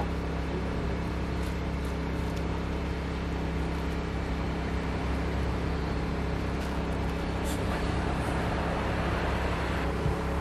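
Steady low machine hum made of several constant tones, with a few faint knife taps on a wooden cutting board as boiled offal is sliced.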